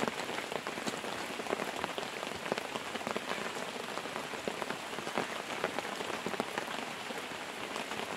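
Steady rain falling onto the open water of a reservoir, a dense hiss with many separate drops heard hitting close by.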